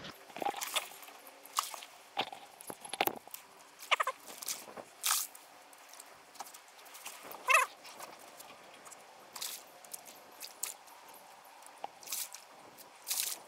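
A hooked redfish being fought to the skiff on a spinning rod: scattered sharp clicks and crackles, with water splashing as the fish thrashes at the surface near the end.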